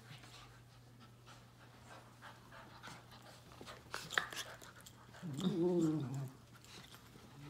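Two dogs play-fighting, a puppy and a small dog: faint scuffling, mouthing and panting, a sharp click about four seconds in, then a short wavering play growl a little after five seconds.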